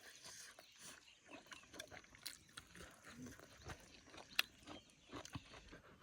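Faint scattered clicks and soft rustles, with one sharper click about four and a half seconds in.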